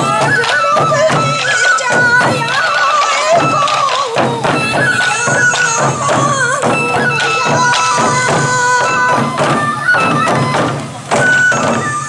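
Sansa odori music: many hip-slung taiko drums struck together in a quick rhythm, with a high bamboo flute (fue) melody wavering over them.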